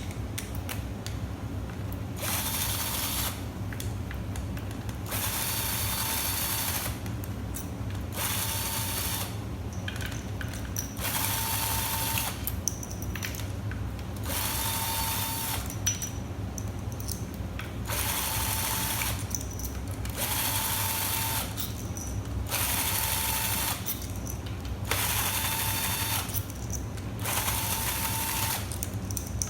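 Cordless power tool spinning out the transmission's valve body bolts in about a dozen short runs, each with a steady motor whine, stopping and starting between bolts.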